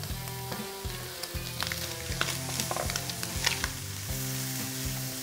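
Bacon and diced onion sizzling in a frying pan while being stirred with a spatula, with frequent short clicks and scrapes of the spatula against the pan.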